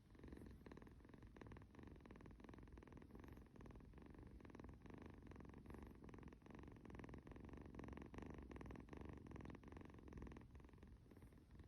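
A kitten purring steadily and faintly, a low rumble of rapid, even pulses.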